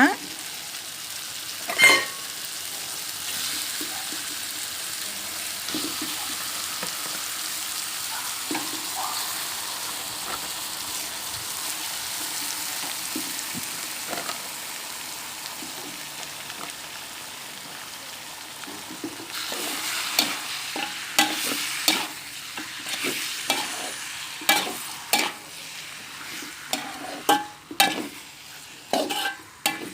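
Country chicken pieces frying in a pan of onion-tomato masala, a steady sizzle after a knock about two seconds in. From about twenty seconds in, a spoon scrapes and knocks irregularly against the pan as the chicken is stirred.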